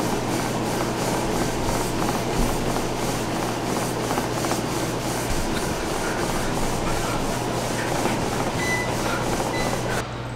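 Treadmill running under a jogger: a steady motor hum and rushing belt noise, with regular footfalls on the deck. The sound drops off suddenly near the end.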